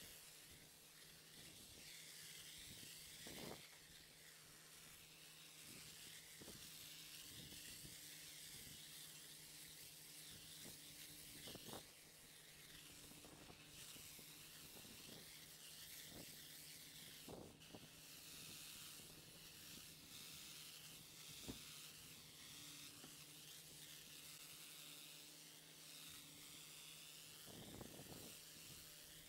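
Near silence: a faint hiss with a low steady hum and a few soft clicks.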